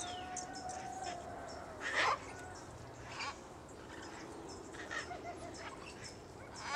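Birds calling: a held whistle at the start, a harsh, caw-like squawk about two seconds in, then a few more calls and scattered short chirps.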